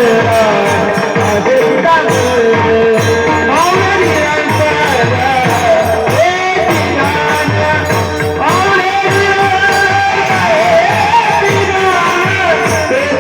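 Marathi devotional bhajan (panchapadi) music: a voice sings long, gliding notes over a steady drum beat.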